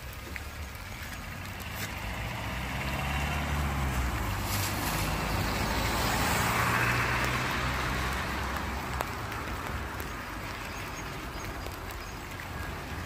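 A motor vehicle passes on the wet road: a low engine hum and the hiss of tyres on wet asphalt swell to a peak about six or seven seconds in, then fade away.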